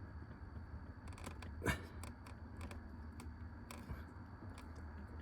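Faint clicks and handling noise of fingers working the plastic brake light switch holder's locking fingers, with one sharper click about a second and a half in, over a low steady hum.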